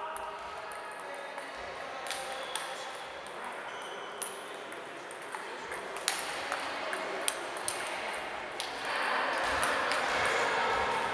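Table tennis ball clicking sharply off bats and table in a rally, with scattered ping-pong clicks from neighbouring tables. Under it runs a steady hall din of voices and play, which gets louder about three-quarters of the way in.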